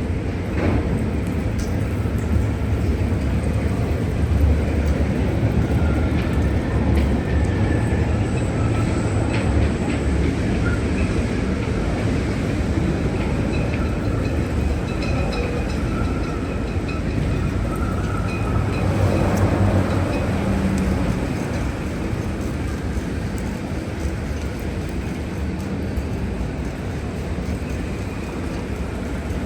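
Gale-force wind gusting and rumbling, buffeting the microphone, with faint thin creaks or squeals above it.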